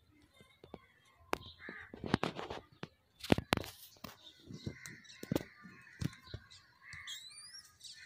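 Outdoor bird calls, harsh calls in the middle and a short high rising chirp near the end, over a scatter of sharp clicks and knocks, the loudest about three and a half seconds in.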